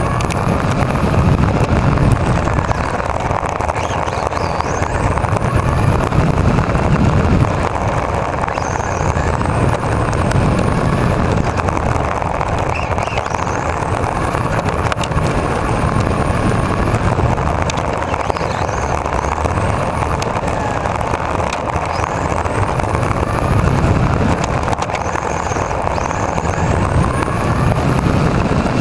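Novak 13.5-turn brushless motor of an RC touring car running on a 2S LiPo, whining high and sweeping up and down in pitch again and again as it speeds up and slows. Underneath is a steady rumble of the tyres rolling over block paving, picked up by a camera mounted on the car.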